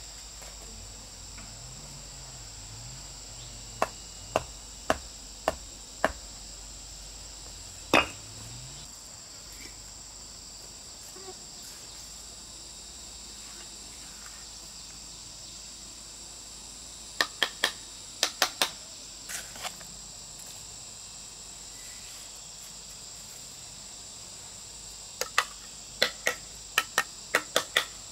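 Crickets chirring steadily in a high band, with sharp knocks of a hard object in short runs: several about two a second a few seconds in, a single louder knock about eight seconds in, then quick clusters past the middle and again near the end.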